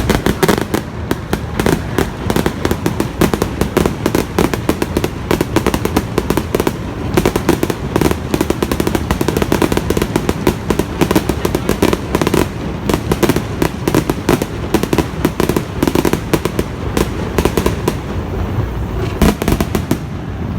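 Fireworks display: a dense, continuous barrage of rapid bangs and crackles, many per second.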